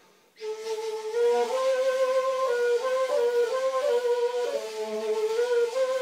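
Kurdish blûr, a long wooden end-blown shepherd's flute, played solo: after a brief pause it comes in about half a second in with a slow, stepwise melody of held notes and audible breath noise.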